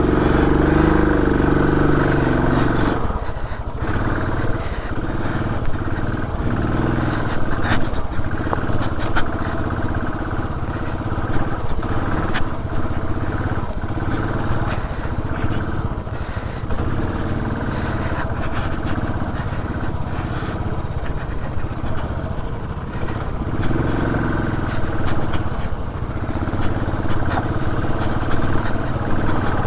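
Benelli TRK 502's parallel-twin engine running as the motorcycle rides a rough off-road track. The engine note rises and falls with the throttle, with occasional short knocks.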